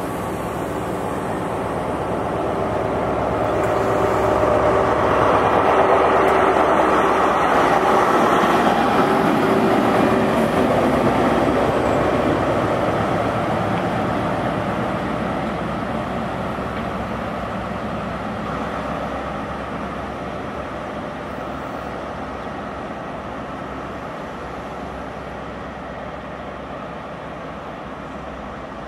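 Diesel engine of an HST (Class 43) power car, with the rumble of the train moving along the track. The sound swells over the first several seconds, peaks, then slowly fades, with a steady engine hum throughout.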